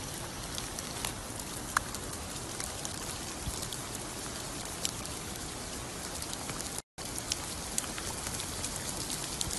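Steady hiss of rain falling during a hailstorm, with scattered sharp ticks of drops striking. The sound cuts out for a moment about seven seconds in.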